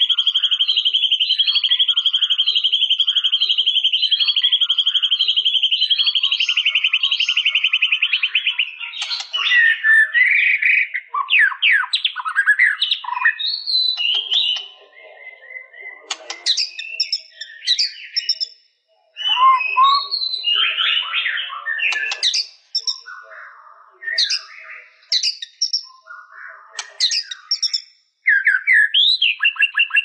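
White-rumped shama singing: a long, rapid trill for about the first eight seconds, then a run of varied whistles, chips and rising and falling phrases with short pauses between them.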